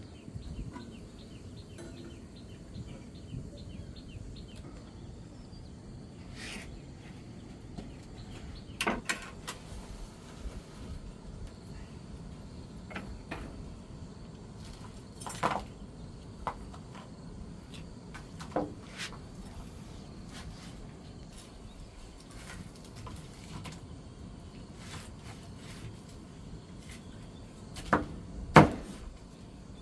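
Scattered knocks and clatters of objects being handled, a few seconds apart, over low steady background noise. Two louder knocks come near the end.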